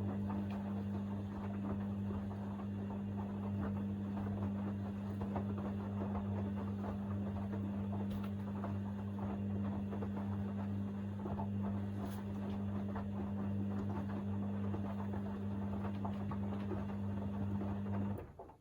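Hoover DynamicNext washing machine in its main wash: the motor hums steadily while the drum turns and the laundry and water slosh and patter inside. The drum stops abruptly near the end.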